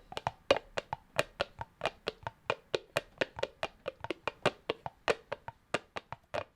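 Imitation horse hoofbeats made as a Foley sound effect: a fast, unbroken run of sharp clip-clop knocks, about seven a second, in an uneven galloping rhythm.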